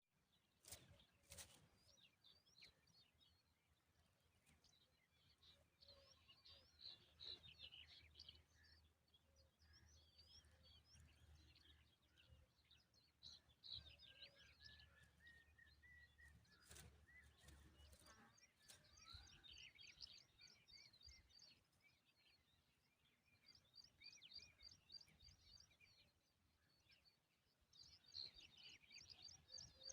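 Faint, high-pitched chirping of common tailorbird nestlings: many short cheeps, coming in quick rapid runs at times, with a few sharp clicks near the start.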